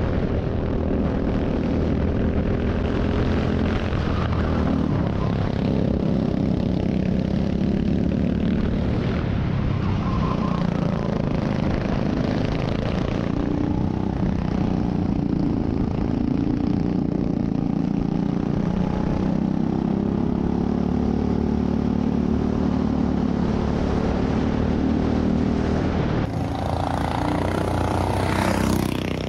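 Rental go-kart engine running, heard from on board, its revs rising and falling through the corners. About 26 seconds in, the sound changes to a kart engine heard from trackside as a kart takes a corner.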